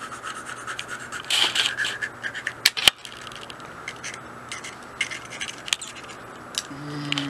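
Scratchy rustling with many scattered clicks, one sharp click a little under three seconds in, and a short low hum near the end.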